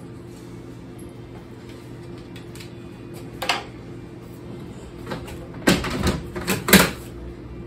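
A clear plastic storage tote and its lid being handled: a single knock about three and a half seconds in, then a quick run of plastic knocks and rattles near the end.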